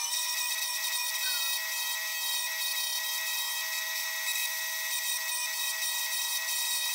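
Drill press running with a sanding drum that is shaping an Osage orange wand. The audio is sped up six times, so the motor and sanding come out as a high, steady whine with several fixed tones over a hiss.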